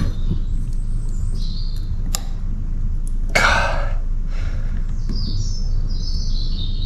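Small metallic clicks and a brief scrape about three seconds in, as a piston ring is worked by hand around a new piston and into its groove, over a steady low hum. Small birds chirp faintly at times.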